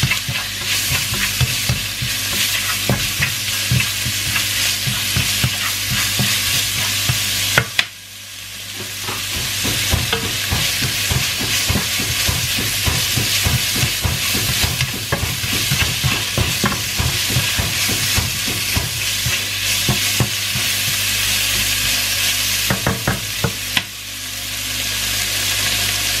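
Diced chicken sizzling in a hot oiled frying pan over high heat, stirred with a wooden spatula that scrapes and taps against the pan. The sizzle drops away briefly about eight seconds in and again near the end, then builds back up; a steady low hum runs underneath.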